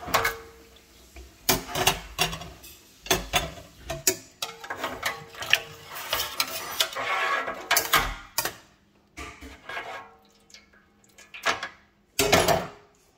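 Metal mesh range hood filter knocking and clinking against a metal pan of hot soaking water, with water sloshing as it is moved about; irregular knocks and short splashy washes.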